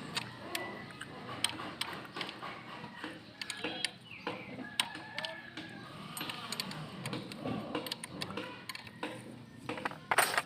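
Irregular clicks and clinks of hand tools on metal motorcycle engine parts during disassembly, with a louder clatter near the end.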